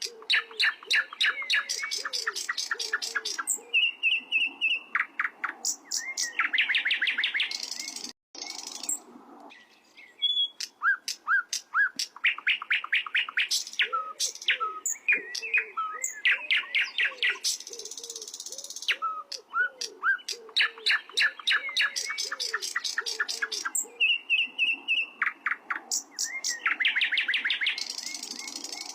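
Sikatan londo songbird singing a long, varied song of fast trills and quickly repeated chirps in bursts with short pauses, with a break about eight to ten seconds in. A soft, low, repeated note runs underneath.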